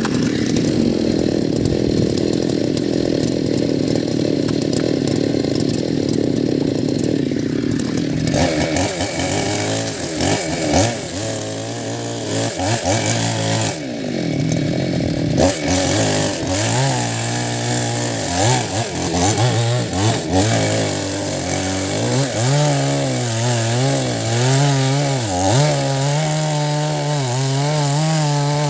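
Chainsaw cutting into the roots of a rain tree stump, the engine running hard. After about eight seconds the engine pitch starts to waver, dipping and recovering over and over as the chain bites and loads the engine.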